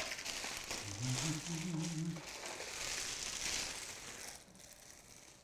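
Plastic packaging crinkling and rustling as it is handled, fading out about four seconds in.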